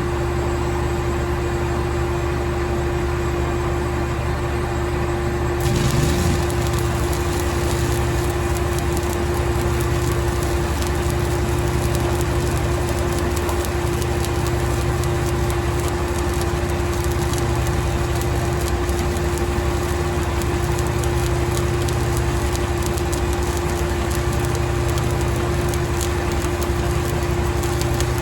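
Steady engine hum, then about six seconds in a stick-welding arc strikes and crackles steadily through the rest, laying a weld pass on a cracked excavator bucket.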